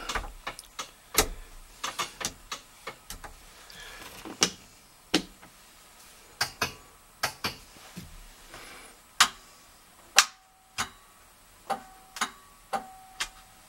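Dashboard switch of a 1969 VW Beetle being clicked back and forth over and over, about twenty sharp clicks at an irregular pace. It is a test of the dash lighting, which only switches on and off with no dimming.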